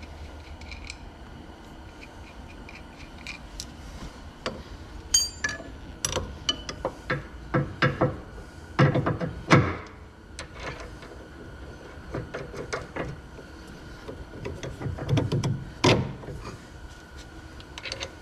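Hand tools and metal suspension parts clinking and knocking as a sway bar end link is fitted and its nut worked on. The sharp knocks come in irregular clusters, busiest through the middle and again about three-quarters of the way in.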